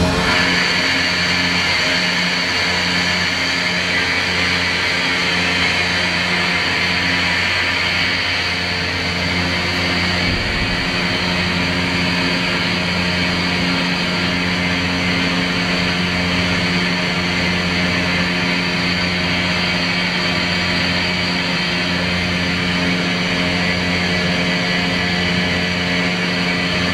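Atlas Copco ZT18 25 hp oil-free rotary screw air compressor running steadily: a constant motor hum with a strong high airy hiss from the compression and cooling.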